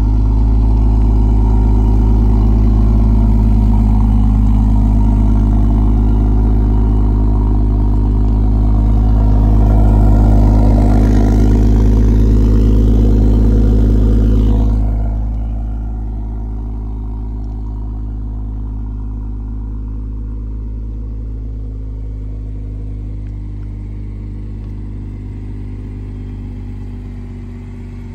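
BMW M140i's 3.0-litre turbocharged straight-six idling steadily through an M Performance exhaust, heard close to the tailpipes. About 15 seconds in it becomes noticeably quieter and runs on at the same even idle.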